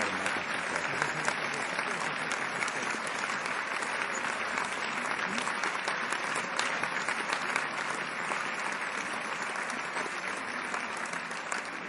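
Large theatre audience applauding: dense, steady clapping from many hands, easing slightly toward the end.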